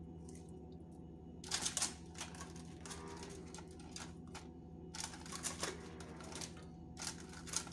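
A hand rummaging through frozen cherries in a thin plastic clamshell tub: clusters of crinkly plastic crackling and clicking, about a second and a half in, around five seconds and near the end, over a low steady hum.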